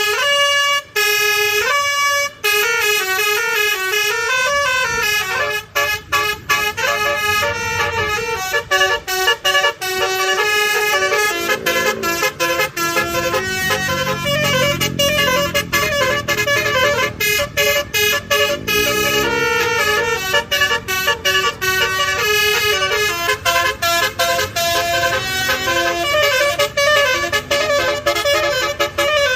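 Telolet bus horns: a multi-tone musical air horn playing a melody of quick toots that step up and down in pitch, several notes at once. In the middle, a lower tone swoops down and back up.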